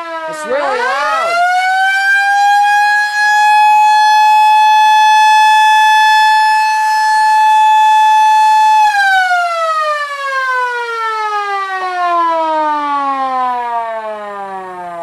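Small Model A electromechanical siren. Its falling tone dips and comes back up about a second in, then it winds up to a steady wail and holds it for about six seconds. It is then switched off and slowly winds down in pitch.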